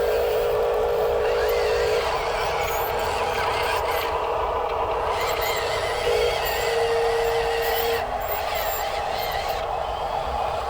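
Small electric motors of RC construction toys whining steadily. A steady hum stops about two seconds in and comes back briefly around six to eight seconds in, over a constant mechanical whirr.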